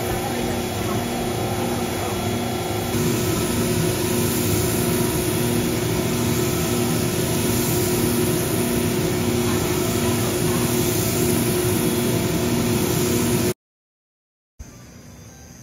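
Coffee roaster's cooling tray running, its motor-driven stirring arm sweeping freshly roasted beans around: a steady mechanical whir over the rustle of the beans, with a regular low pulse about twice a second. It cuts off abruptly near the end.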